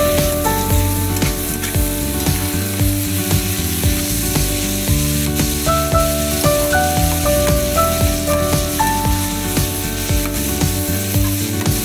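Leafy greens and vegetable sticks sizzling in a hot wok, with a spatula stirring and scraping through them. Background music with a melody plays throughout.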